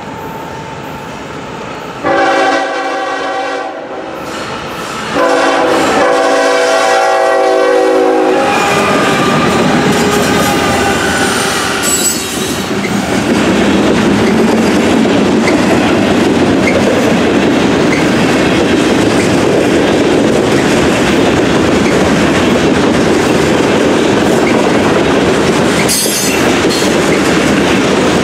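Diesel freight locomotive's air horn sounding two long blasts at a grade crossing. About 9 seconds in, the horn gives way to the loud, steady rumble of the train passing close by, with covered hopper cars' wheels clicking over the crossing.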